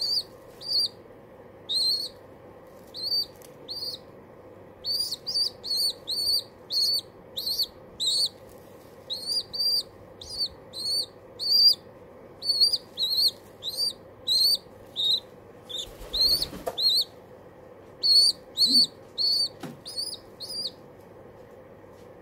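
Pigeon squab squeaking loudly to beg for food, still hungry after a big feed: short high peeps in quick runs of two to four that stop about two seconds before the end. One brief rustle about three quarters through.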